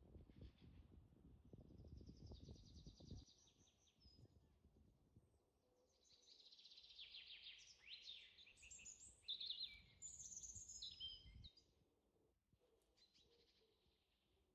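Small birds chirping and trilling, quiet and intermittent, busiest in the second half, over a low crackly rumble that comes and goes.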